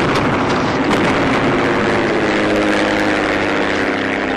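Single-engine propeller plane droning overhead, its pitch sinking slightly as it passes, over a broad rushing noise with a few sharp cracks.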